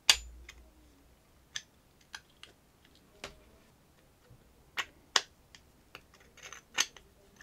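Parts of a Toyota Prius parking-pawl actuator clicking and knocking as they are handled and fitted together by hand. The rotor and the plastic housing give a sharp click at the very start, then about seven lighter scattered clicks.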